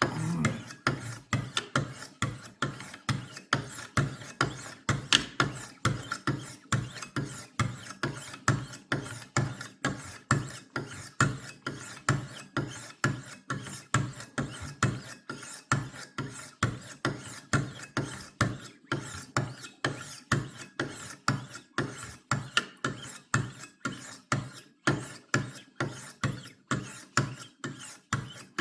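Ceramic sharpening stones, 1200 grit, on a Wicked Edge WE60 guided sharpener, drawn again and again along a steel kitchen knife's edge: short rasping scrapes in a steady rhythm of about two strokes a second. This is the polishing stage after the coarser grits.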